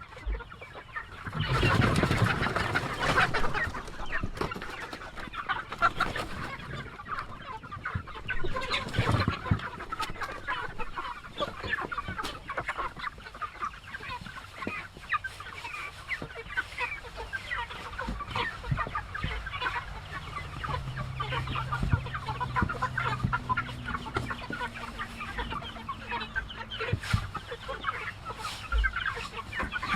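A flock of young laying hens clucking and chirping continuously, with louder bursts of rustling about two seconds and nine seconds in.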